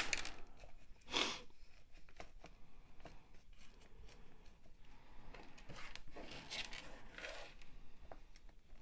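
Quiet rustling and scattered small clicks of hands handling a freshly potted orchid, with a brief louder rustle about a second in and more rustling a little past halfway.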